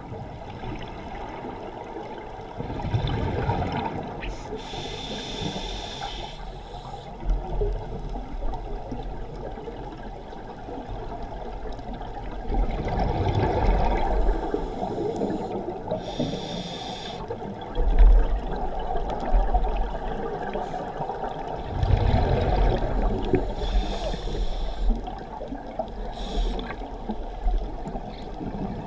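Scuba diver breathing through a regulator, heard underwater: three slow breaths, each a low bubbling rush of exhaled bubbles and a short hiss of the inhale, over a steady muffled water rush.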